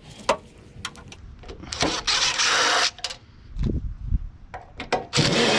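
Power driver running in short bursts of about a second, backing out Torx screws on an electric go-kart's battery casing, with small clicks of metal parts between the bursts.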